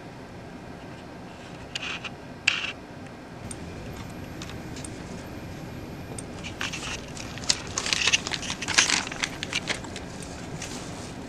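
Handling noise from a red plastic fire alarm horn-strobe: two sharp clicks about two seconds in, then several seconds of crackling and scraping as it is handled and set down.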